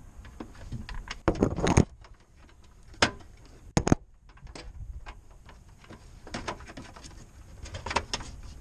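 Handling noise as a line is pulled and routed toward the air bag: irregular clicks, rattles and knocks, with a loud cluster of rattling about a second and a half in and two sharp knocks around three and four seconds in.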